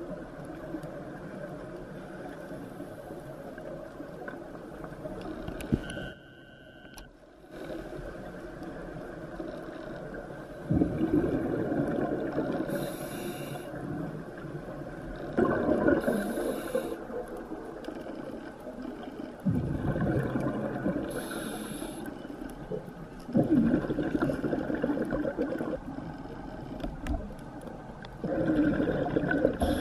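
Scuba diver's regulator breathing underwater: a hiss on each inhalation and a loud burst of bubbling exhaust about every four seconds, starting about a third of the way in, over a steady low underwater rumble.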